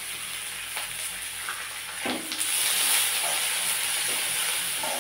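Sliced onions and green chilli sizzling in hot oil in a steel kadai, with a few scrapes and clinks of the spatula against the pan as they are stirred. The sizzle grows louder about two seconds in.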